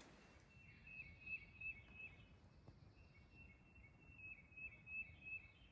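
Faint bird calling at night: a high chirping phrase of short notes stepping slightly up and down in pitch, given twice, against near-silent background.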